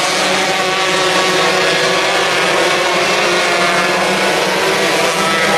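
A pack of 125cc micro sprint cars racing, several two-stroke engines running at high revs together in a steady, overlapping drone.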